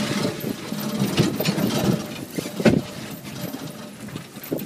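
Wheeled dogsled cart, pulled by a sled-dog team, rolling and rattling over a gravel trail, with a sharp knock about two and a half seconds in.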